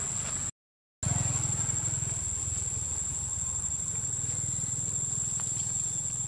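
Steady outdoor background: an even, high-pitched whine over a low hum, with the sound cutting out completely for about half a second near the start.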